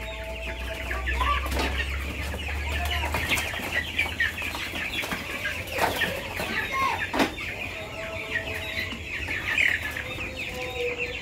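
A flock of 13-day-old broiler chicks peeping and cheeping continuously in a dense chorus. A few sharp knocks come in between as the plastic crate is set down and handled.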